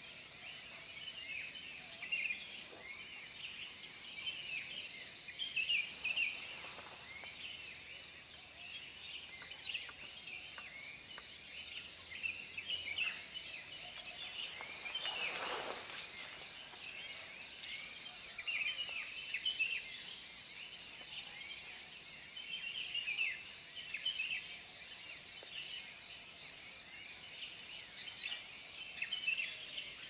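A chorus of many small forest birds, chirping and twittering continuously. There is a brief rush of noise about halfway through.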